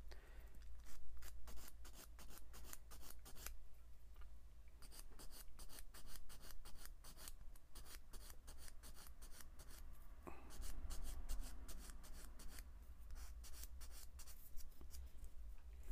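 Sanding stick rubbed in quick back-and-forth strokes along the edge of a small plastic model-kit part, several scratchy strokes a second, easing off briefly about ten seconds in before resuming. It is the sound of cleaning up the part's edge after it has been cut from the sprue.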